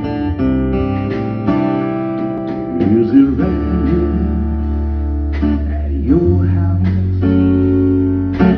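A live country band plays the instrumental intro of a song: a strummed acoustic guitar with electric guitar, a steady low bass line and drums.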